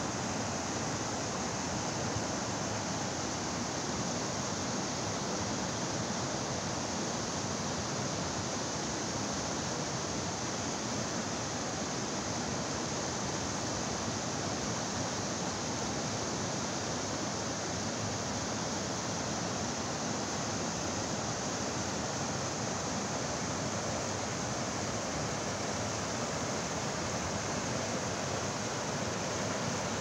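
Rapids of the Yon river: water rushing over and around boulders, a steady, even rush with no breaks.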